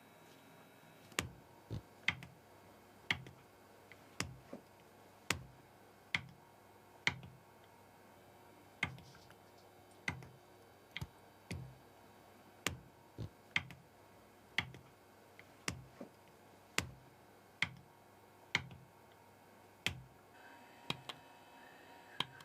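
Sharp taps of a hand tool on a platinum watch case being prepared for diamond setting, about one a second, some in quick pairs.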